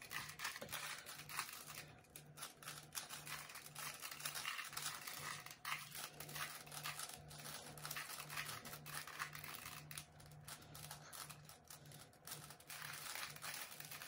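Two 3x3 Rubik's cubes being turned fast by hand: a dense, continuous run of plastic clicking and clacking as the layers rotate, played back sped up.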